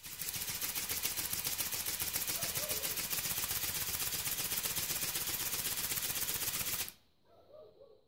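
Bionic Bird ornithopter toy flapping its wings while held in the hand, its small electric motor driving the wings in a rapid, even buzz of wingbeats. It starts suddenly and cuts off about seven seconds in.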